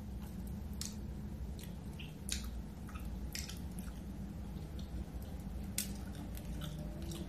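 Close-up eating sounds of a mussel being worked out of its shell at the mouth: scattered short, wet clicks and smacks, about a dozen, at irregular intervals over a steady low hum.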